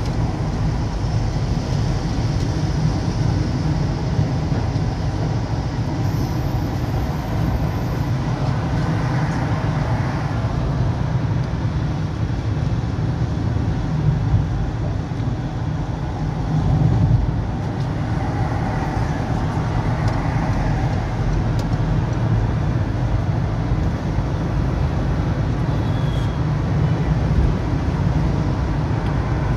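A vehicle driving on the road: a steady low engine and tyre rumble, with two swells of louder road noise about ten and twenty seconds in.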